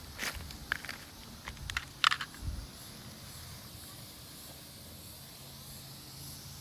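Black smoke bomb burning with a faint steady hiss. A few short crunches and clicks come in the first two seconds, the sharpest about two seconds in, followed by a dull thump.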